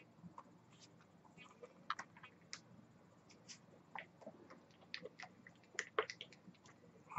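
Faint, irregular clicks and rustles of a small e-liquid box being opened and handled by hand.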